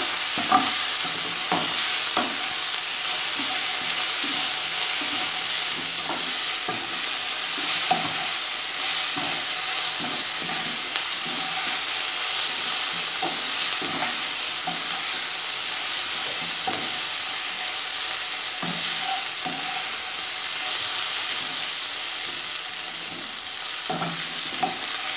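Softened sliced onions sizzling in a little oil in a non-stick pan, stirred with a wooden spatula that scrapes and knocks against the pan about once a second.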